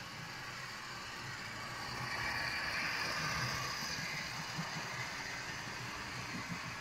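Model train running on track: the locomotive's electric motor whirring and the wheels rattling over the rails. It grows louder as the locomotive and freight cars pass close by, loudest from about two to four and a half seconds in, then eases off as the cars roll past.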